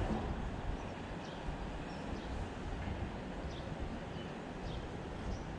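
Wind buffeting the microphone in a steady low rumble, with a few faint, short bird chirps in the background.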